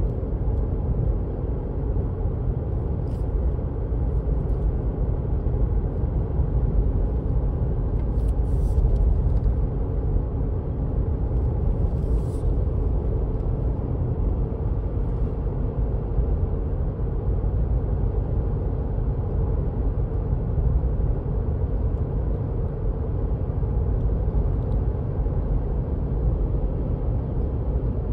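Steady low rumble of a car driving on a sealed country road, heard from inside the cabin: tyre and engine noise. A few faint, brief higher sounds come through about eight and twelve seconds in.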